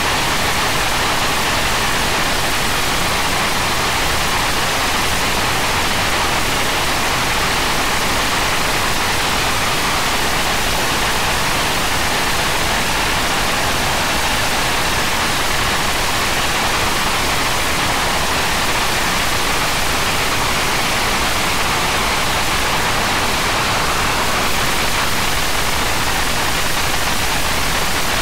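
English Electric Lightning's Rolls-Royce Avon turbojet running at high power during a ground run, a loud, steady rushing noise that holds level with no rise or fall.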